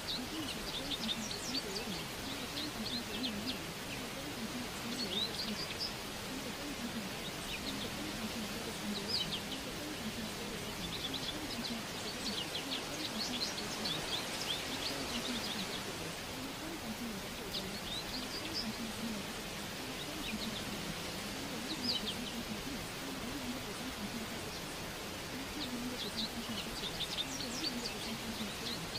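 Birds chirping in short bursts over a steady background hiss, with a low, indistinct murmur like a muffled voice underneath.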